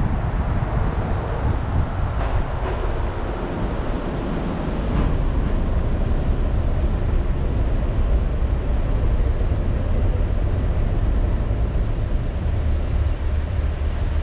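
Car driving along: a steady low rumble of engine and tyre-on-road noise, a little louder after about five seconds.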